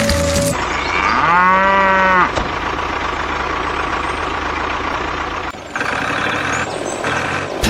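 A cow moos once, a single call of about a second that rises and falls in pitch, over a steady rushing background noise; music cuts off about half a second in.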